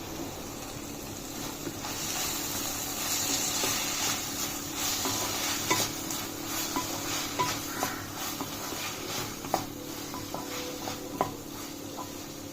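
Sliced onions, bell pepper, tomatoes and garlic sizzling in olive oil in a pan while being stirred, with a utensil clicking and scraping against the pan. The sizzle is louder for a few seconds after about two seconds in.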